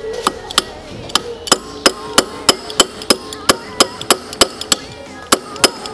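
A wood drill bit, used as a makeshift centre punch, struck repeatedly against a scooter's metal handlebar tube to mark a spot for drilling. The strikes are quick and sharp, about three a second, and each rings briefly.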